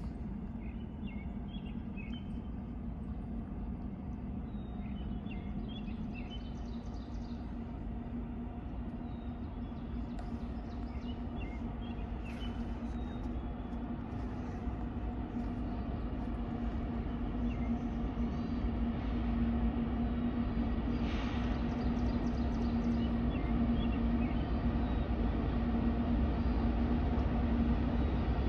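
Distant diesel freight locomotive approaching, heard as a steady low engine drone and hum that slowly grows louder. A few bird chirps are heard in the first dozen seconds or so.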